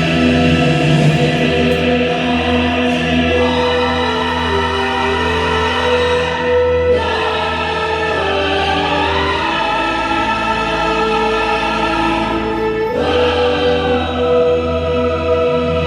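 Music with choir-like singing on long held notes over a pulsing bass line; the bass drops out for a few seconds in the second half and then comes back.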